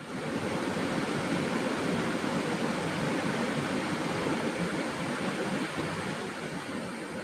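A steady, even rushing noise, like stormy weather, that starts abruptly and holds without a break.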